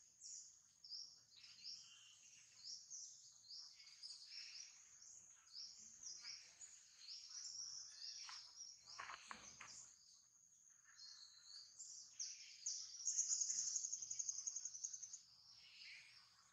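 Outdoor bird chorus: many small birds chirping and calling in short high notes. About two-thirds of the way through, a louder, fast-pulsing high trill rises over them for a couple of seconds.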